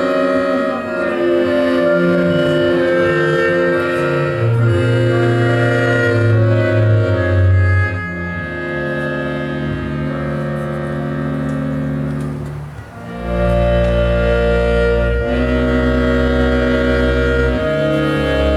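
Live ensemble music: long held notes over a low double-bass line that moves between notes. About thirteen seconds in the music briefly drops, then comes back with a deep, heavy bass underneath.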